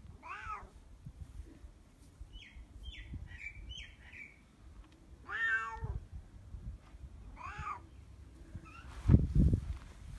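Domestic cat meowing three times: once near the start, once about five seconds in and again two seconds later. A few short high chirps come between the first two meows, and low thumps sound near the end.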